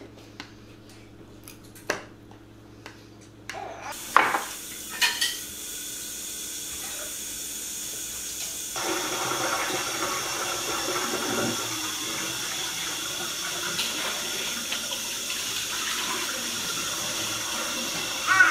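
Kitchen tap running into the sink, coming on about four seconds in after a few light knocks and running harder from about nine seconds in.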